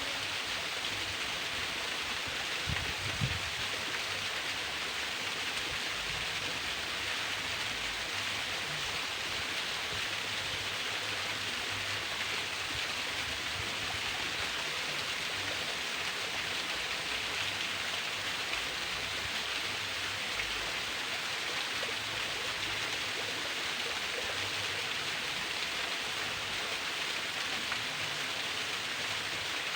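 Narrow waterfall splashing in a steady, even rush of falling water, with a brief low thump about three seconds in.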